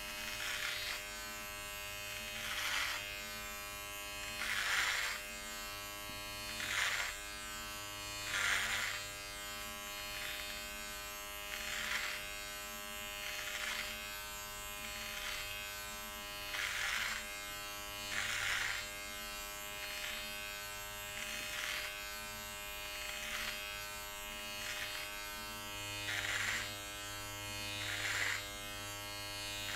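Electric body trimmer with a comb guard buzzing steadily as it is stroked up through beard hair, the cutting rasp swelling louder with each pass, roughly every one and a half to two seconds.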